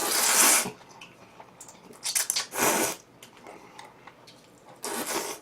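Close-miked eating: three short hissing slurps, about two seconds apart, with faint dish and utensil noise between them.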